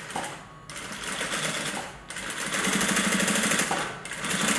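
Sewing machine stitching through waxed canvas, a second line of topstitching beside the first. It runs in short goes: a quieter run about a second in, then a louder steady run from about two seconds in that stops briefly about four seconds in before starting again.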